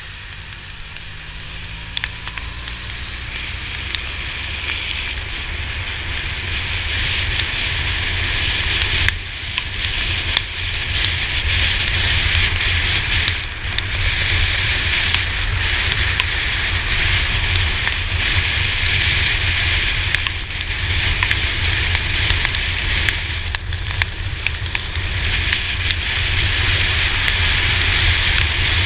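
Wind buffeting and wet-road tyre spray heard from the GoPro mounted on a Yamaha T-Max 530 scooter riding in heavy rain, with raindrops ticking against the camera housing. The noise builds over the first several seconds as the scooter picks up speed, then stays steady with a deep rumble under a hiss.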